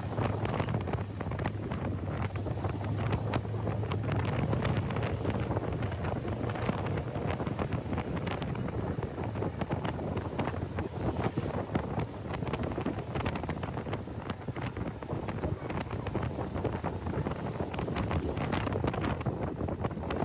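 Wind buffeting the microphone of a camera riding in a moving vehicle, in uneven gusts. A low, steady engine hum sits underneath for the first few seconds and then fades.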